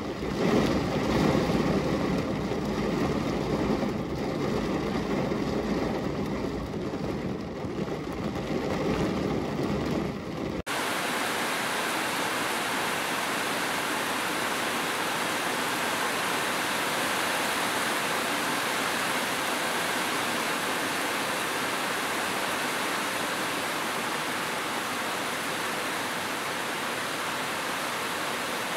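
Rain falling on a car's windshield, heard from inside the car as a low, uneven rush. About ten seconds in it cuts suddenly to heavy rain falling steadily on corrugated metal roofs, an even, brighter hiss.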